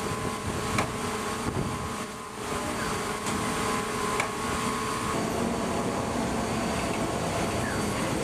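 Steady shipboard machinery and wind noise on a deck during underway replenishment at sea, with a few sharp knocks. A faint steady hum changes pitch about five seconds in.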